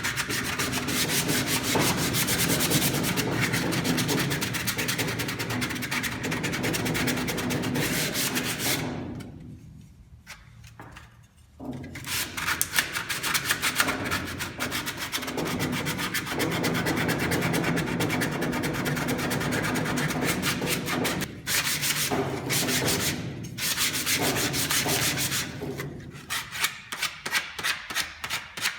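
Hand sanding a wooden spatula with sandpaper: steady back-and-forth rubbing strokes. The strokes stop for a couple of seconds about a third of the way in, then resume. Near the end they come as separate quick strokes, about three a second.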